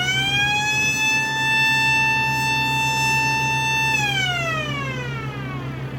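Blast warning siren sounding one long call: it winds up in pitch, holds a steady wail for about three seconds, then winds down near the end. An engine runs steadily underneath.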